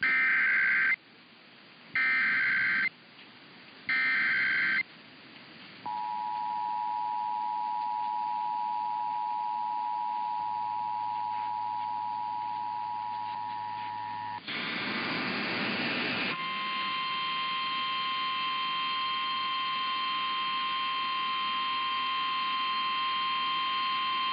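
Emergency Alert System broadcast tones. Three short screeching bursts of SAME digital header data come first, then the two-tone EAS attention signal held steady for about eight seconds. A brief burst of noisy static follows, then a single steady alert tone that stops shortly before the end.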